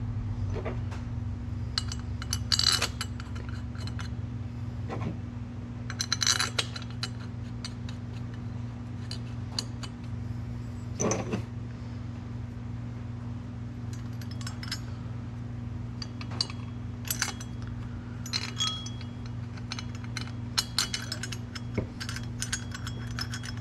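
Scattered light metal clinks and taps as the valve-train parts, rocker arms and pushrods, are handled and fitted on the small engine's overhead-valve cylinder head, over a steady low hum.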